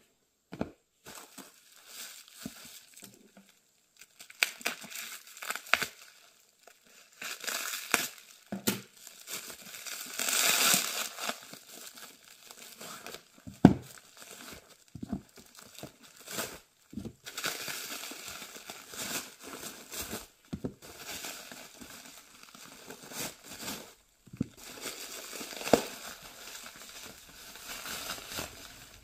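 Clear plastic wrapping crinkling and tearing as hands unwrap a bundle of old hardback books, in irregular bursts. A few sharp knocks of books set down on the wooden table come between, the loudest about halfway through.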